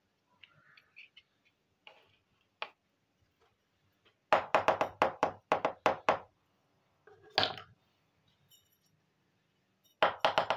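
Small plastic toy kitchen pieces clicking and knocking as they are handled and set down. A quick run of about eight clicks comes a little over four seconds in, another about seven seconds in, and a few more near the end.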